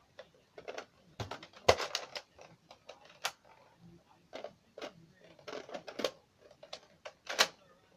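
Irregular plastic clicks and knocks of a Nerf blaster being handled and its parts fitted together, with the sharpest snaps about two seconds in and near the end.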